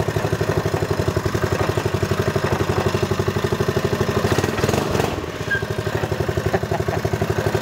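Dixon Terra minibike's small single-cylinder petrol engine running at a steady putter, with a brief rise in revs about halfway through.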